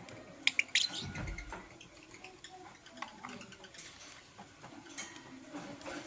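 A quick cluster of sharp clicks about half a second in, from a lovebird pecking at its wooden perch, then a low thump and scattered soft ticks as the birds move about the cage.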